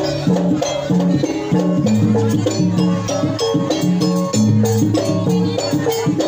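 Gamelan-style ensemble playing jaranan dance accompaniment: a steady repeating pattern of short pitched struck notes over drumming.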